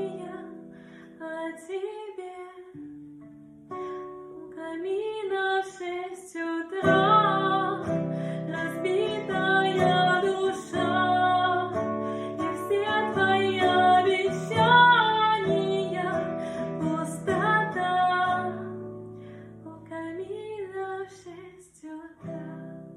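A woman singing a slow song with guitar chords under her voice. The accompaniment is sparse at first and fills out about seven seconds in, grows quieter near the end, and then cuts off suddenly.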